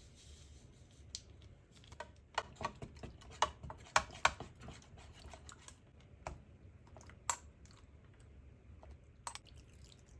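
Irregular light clicks and taps of kitchen utensils and containers being handled, a dozen or so scattered sharp knocks over a low steady hum, the loudest about four seconds in.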